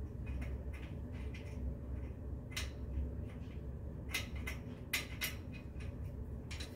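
Light metal clicks and ticks as a screw is turned by hand into a joint of a steel platform bed frame, with a few sharper clicks in the second half.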